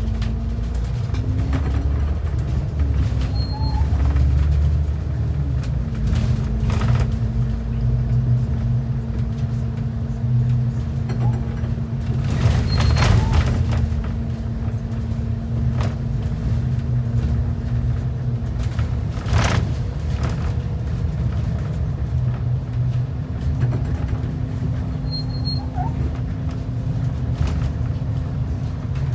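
Transit bus running at steady speed: a low engine and road rumble with a droning whine that falls in pitch in the first seconds and then holds steady. Short knocks and rattles come now and then, the loudest about halfway and two-thirds of the way through.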